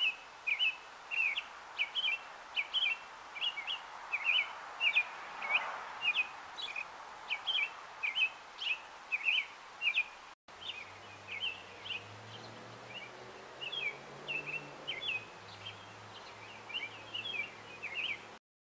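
American robin singing: a steady run of short, clear whistled notes, two or three a second, with a brief break a little past halfway. A low steady hum runs under the second half.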